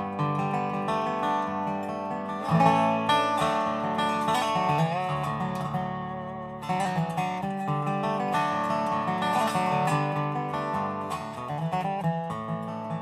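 Dobro resonator guitar played solo, lap-style with a steel bar: a melody of picked, ringing notes, some sliding between pitches, over sustained chords.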